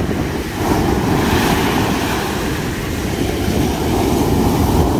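Heavy surf from a rough sea, waves breaking one after another in a steady loud rumble that swells about half a second in, with wind buffeting the microphone.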